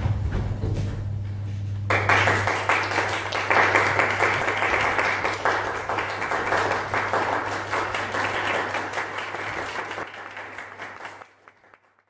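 Audience applause, breaking out suddenly about two seconds in and fading away near the end.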